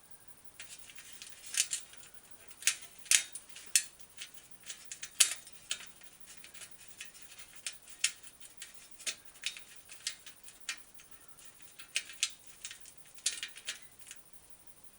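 Sharp metallic clicks and clinks in irregular clusters, with a few louder ones in the first few seconds: a wrench working a fender-mounting bolt on a Schwinn bicycle.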